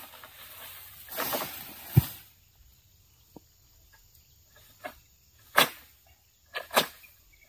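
Pole sickle working in an oil palm crown during harvesting: a rustling swell of fronds about a second in, ending in one sharp thump about two seconds in, then several short crisp strokes near the end.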